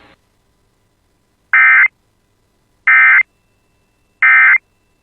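Emergency Alert System end-of-message signal: three short bursts of digital SAME data tones, a little over a second apart, marking the end of the alert.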